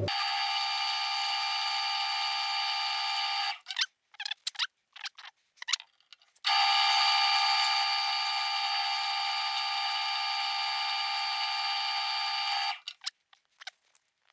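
Electric drill running at a steady speed in two runs, a short one and then a longer one, stopping for about three seconds in between with a few light clicks and knocks. It is spinning a door-hinge part against 120-grit sandpaper to sand it down to size.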